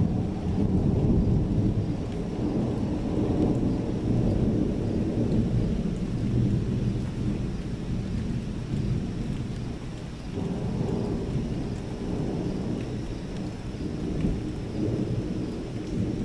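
Long rolling thunder rumbling low and continuously, loudest in the first couple of seconds and swelling again several times, over a steady hiss of rain.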